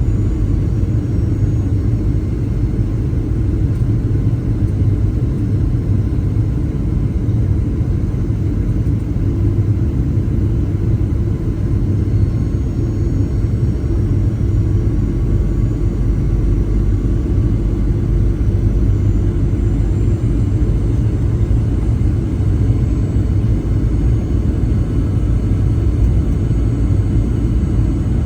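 Steady cabin rumble of a Boeing 737-900ER in flight, with the faint whine of its CFM56-7B engines over it.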